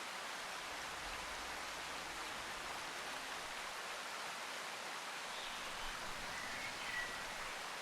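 Steady, even hiss with no distinct events, and a faint brief chirp about seven seconds in.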